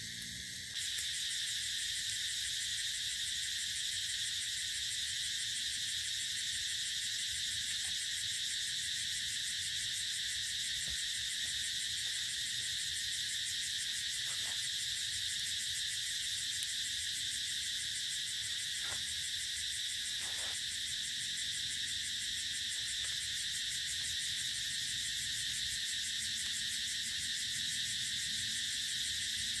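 Dense, steady chorus of crickets and other insects, a high-pitched rapid trilling that never lets up. A few faint snaps are heard in the middle.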